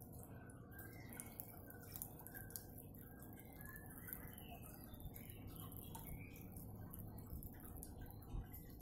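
Quiet room tone: a low steady hum with faint, scattered ticks and small high blips.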